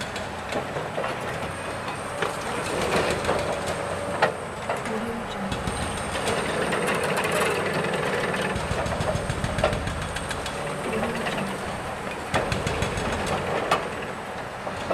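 Construction site work: a continuous rumble of machinery with scattered sharp knocks and clanks of work going on.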